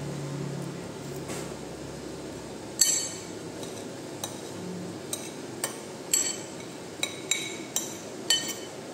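Cutlery clinking against a bowl while eating: about a dozen sharp, ringing clinks at irregular intervals, starting about three seconds in, the first one the loudest.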